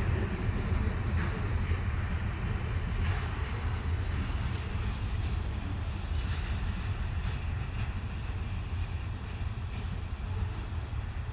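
A freight train of loaded trash cars rumbling on the rails, the sound fading slowly as the last cars roll away down the track.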